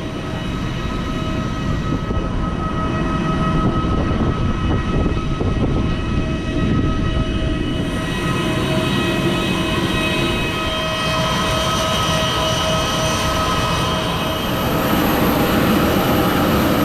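Airliner cabin noise: the engines running with a steady rush and several steady whining tones, growing a little louder about fifteen seconds in.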